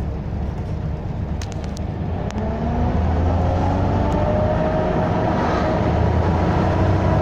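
Volvo B7TL double-decker bus engine heard from on board, picking up speed: its pitch and loudness rise steadily from about two seconds in. A few sharp clicks come just before it starts to climb.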